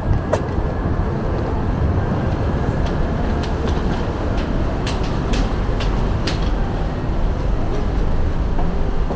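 Steady low rumble of city traffic, with a few sharp taps of footsteps on concrete stairs.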